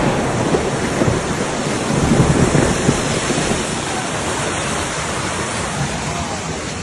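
Loud, steady rushing of floodwater, swelling briefly about two seconds in.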